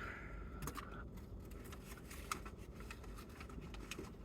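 Faint scattered clicks and light rustling, with one sharper click about two seconds in.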